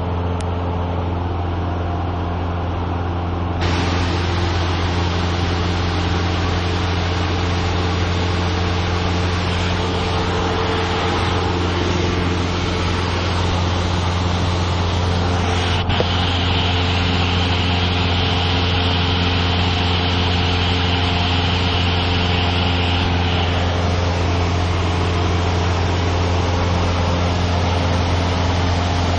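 Single-engine light aircraft's piston engine and propeller droning steadily, heard inside the cockpit, with a steady rush of air noise that gets louder a few seconds in. A single click comes about halfway through.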